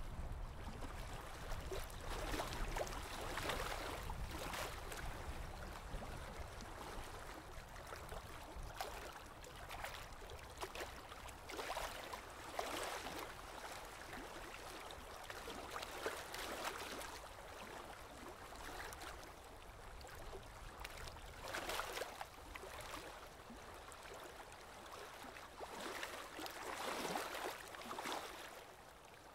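Aquarium water gurgling and trickling, with irregular louder swells every second or few over a steady low hum.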